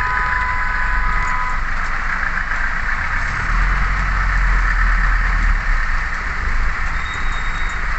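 Heavy rain drumming on a vehicle's roof and windshield, heard from inside the cabin, over the low rumble of the engine idling in traffic. A steady high tone fades out about a second and a half in.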